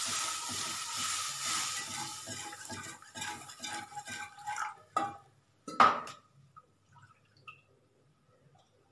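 Milk poured into a hot butter-and-flour roux, sizzling and hissing as it hits the pan and dying away over the first few seconds. Then a wire whisk stirs and scrapes in the pan, with a sharp clink about six seconds in.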